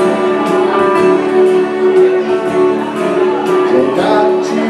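Live country dance-band music, guitar to the fore over a steady beat, in an instrumental stretch between sung lines.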